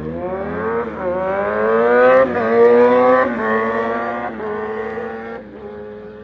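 Sport motorcycle engine accelerating hard through the gears, its pitch climbing and dropping back at each upshift about once a second. It is loudest a couple of seconds in, then fades as the bike pulls away.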